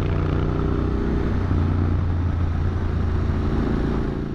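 Motorcycle engine running at a steady, fairly even speed while riding, with a rush of wind and road noise.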